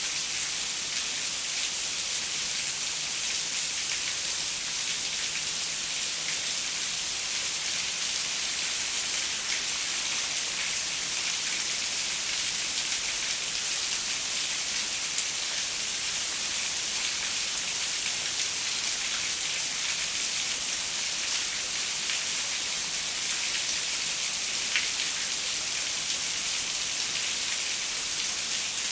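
Steady rain pattering on a window, a dense even hiss of drops with fine scattered ticks and no thunder.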